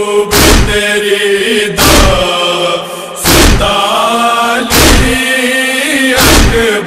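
Noha chanting: voices hold a mournful lament line, with a heavy matam chest-beating thump keeping time about every one and a half seconds, five strokes in all.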